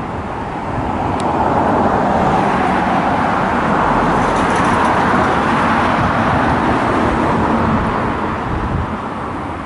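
Passenger train of coaches running past at a distance: a steady rumble and rush of wheels on rail that swells about a second in and eases a little near the end.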